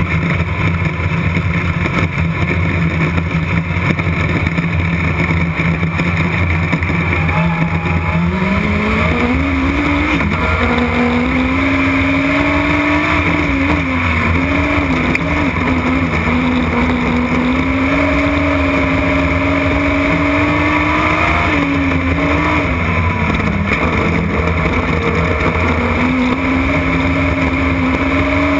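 Race car engine heard from inside the cockpit: a low steady note for about the first eight seconds, then revving up as the car accelerates away, its pitch rising and dipping over and over as the driver comes off and back on the throttle through the corners.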